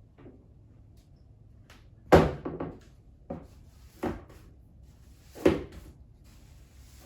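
A handful of irregular household knocks and thuds, like things being set down or a cupboard or drawer being handled; the loudest comes about two seconds in, with four more spread over the next few seconds.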